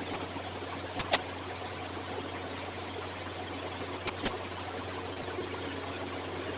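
Classroom room tone: a steady hiss with a low hum under it, broken by two short faint clicks, about a second in and about four seconds in.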